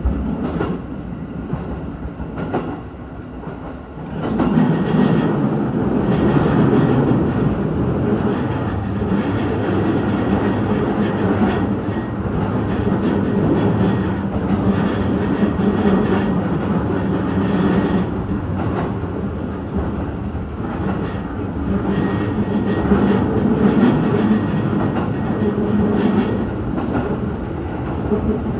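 Electric commuter train running at speed, heard from on board: a steady rumble of wheels on rail with scattered clicks from the rail joints. The sound steps up clearly louder about four seconds in and stays at that level.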